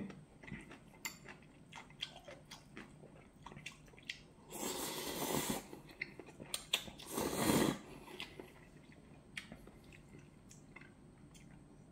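A person slurping hot Shin Ramyun noodles twice, about four and a half and seven seconds in, with quiet chewing and small clicks of chopsticks against the bowl in between.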